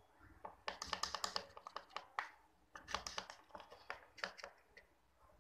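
Plastic spoon stirring white glue and water in a plastic bowl: quick, irregular clicks and taps of the spoon against the bowl, coming in bunches.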